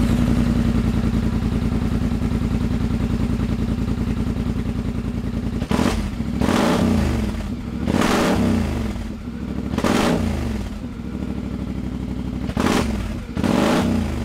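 A 2019 Polaris Sportsman Highlifter ATV engine, just started and in park, idles steadily and then is revved in several short blips on the new left-hand thumb throttle lever. Each blip falls back to idle, a test that the throttle works and returns properly.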